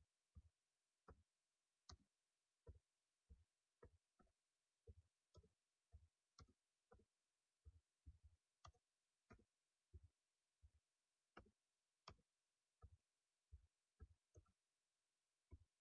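Slow typing on a computer keyboard: faint, single keystroke clicks at an uneven pace of about two a second.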